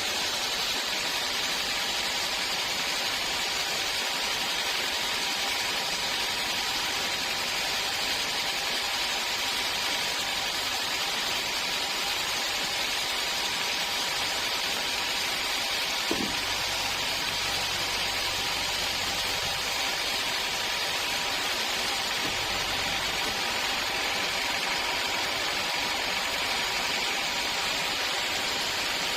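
Sawmill machinery running with a steady hiss and hum that stays unchanged throughout, and one brief short sound about sixteen seconds in.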